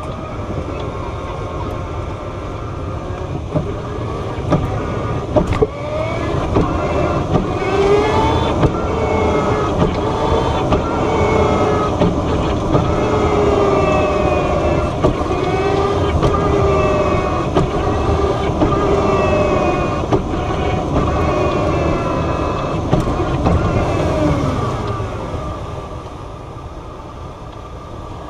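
Tazzari Zero electric car's motor and gearbox whining as it drives, the pitch rising and falling with speed and dying away near the end, with repeated sharp knocks from the drivetrain. These are bad noises on load changes, which the owner puts down to gearbox or drive shaft trouble.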